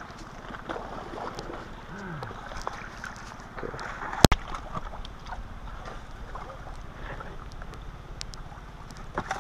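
Shallow creek water running steadily over rocks, with scattered small clicks and one sharp knock about four seconds in.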